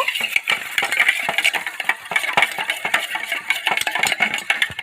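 Sour yogurt being beaten briskly in a bowl: a fast, steady run of clicks and scrapes from the utensil striking the bowl, stopping abruptly at the end.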